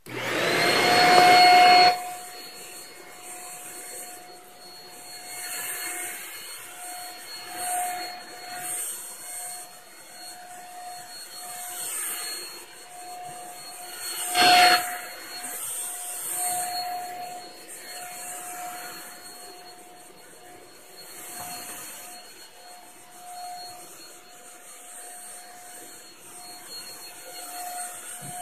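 Shark Rocket Ultra-Light HV382 corded stick vacuum switched on with a loud rush of air for about two seconds, then running steadily with a motor whine, its sound swelling and easing as the head is pushed back and forth over the floor. A single sharp knock about halfway through.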